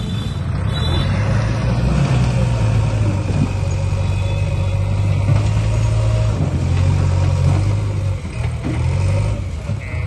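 Backhoe loader's diesel engine running steadily under load.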